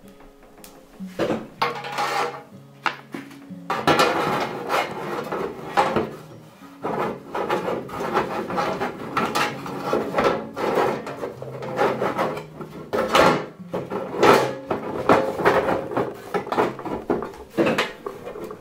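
Hands rubbing, knocking and scraping against the casing of an ADJ VF1100 fog machine as it is handled and fitted back together, over background music.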